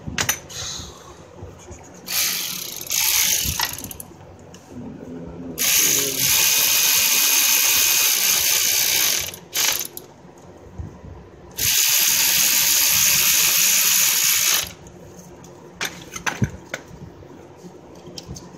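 Power ratchet running in four bursts, two short and two long ones of three to four seconds each, run down and snugging bolts on an A/C compressor install. A few separate clicks of tools and metal parts in between.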